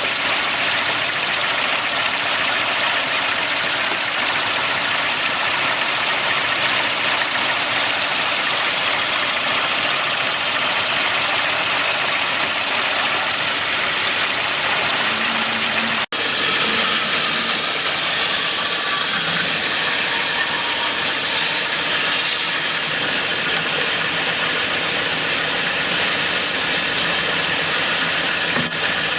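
Steady, loud whir of a woodworking power tool running continuously, with a break for an instant about halfway through.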